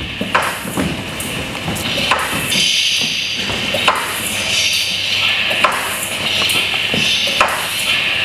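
Irregular sharp knocks, a second or two apart, over a steady rustling hiss.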